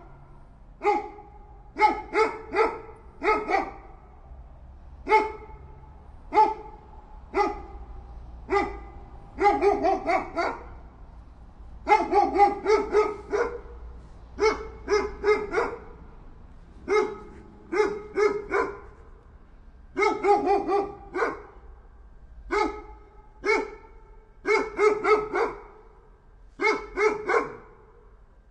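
A dog barking repeatedly, with single barks and quick runs of two to four barks every second or two.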